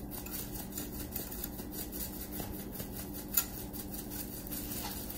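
A seasoning shaker being shaken over a wire basket of cut potatoes and onions, giving faint light rattling ticks over a low steady hum, with one sharper tick a little over three seconds in.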